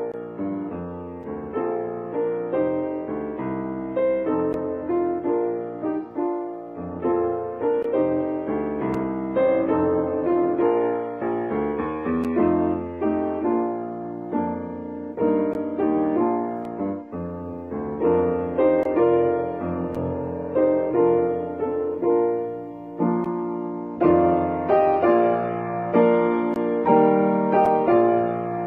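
Solo upright piano playing a chordal piece in a steady pace, growing louder in the last few seconds.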